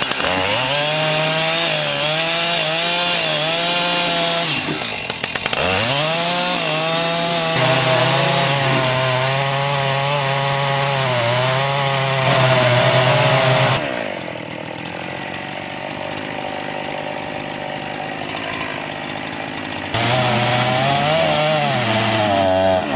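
Petrol chainsaw cutting into a green ash beam, its engine note dipping and climbing as it is throttled and loaded in the cut. About 14 seconds in it falls away to a quieter stretch for several seconds, then revs up again near the end.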